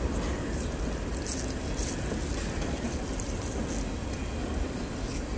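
A fillet knife slicing along a striped bass's backbone, with a few faint, brief high scrapes of the blade on bone about a second or two in, over a steady low rumble of background noise.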